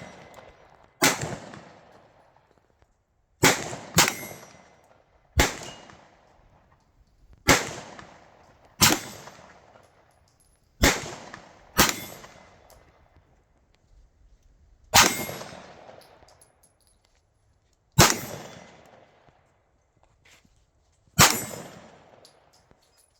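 Glock 19 9mm pistol fired at a steel target, eleven single shots at an uneven pace, mostly one to three seconds apart with a quick pair about three and a half seconds in. Each shot is followed by a ringing clang from the steel plate being hit.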